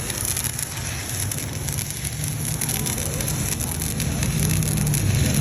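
Stick welding arc crackling steadily as a 3.2 mm electrode burns off on an inverter welder, a continuous sizzling crackle with a low hum underneath.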